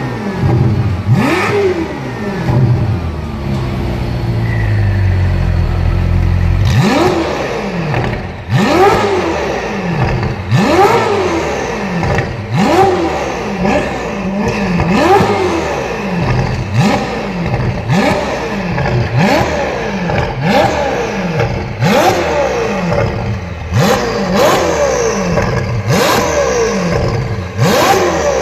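Ferrari 488 GTB's twin-turbo V8 through a catless-downpipe, valved aftermarket exhaust, free-revved while stationary. After one quick rev it settles to a low, steady rumble for a few seconds, then is blipped again and again, about once a second, each rev rising sharply and falling away.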